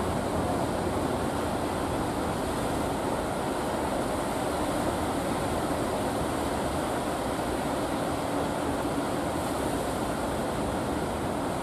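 Steady roar of breaking surf mixed with the running engines of wooden fishing boats motoring out through the waves.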